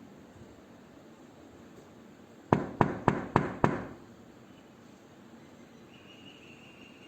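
Knocking on a door: five quick, evenly spaced knocks about two and a half seconds in.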